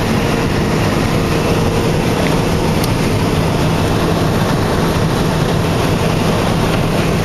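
John Deere 9650 STS combine running steadily while harvesting soybeans: a loud, even drone of engine and threshing machinery with a faint steady hum, heard from inside the cab.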